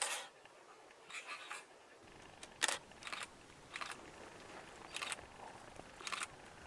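Faint short rustles or scrapes, about seven spread over a few seconds, over a quiet background.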